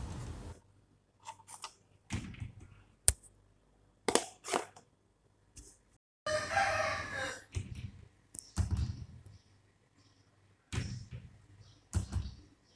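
Plastic bowls, lids and bottles handled on a stone counter: sharp clicks and knocks, the loudest about three and four seconds in. About six seconds in, a long crowing call lasts over a second.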